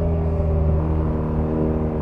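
BMW R nineT's 1170 cc air/oil-cooled boxer twin heard from the rider's seat, running at a fairly steady, low engine speed on a light throttle while riding along.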